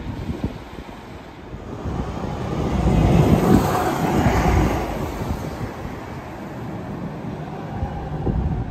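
City bus driving past close by, its engine and tyres growing louder to a peak about three to four seconds in, then fading as it moves away.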